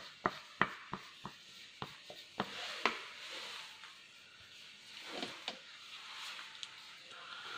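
Wax crayons clicking and tapping as they are handled at the drawing paper: a quick string of sharp clicks in the first three seconds, then a soft hiss with a few more scattered clicks.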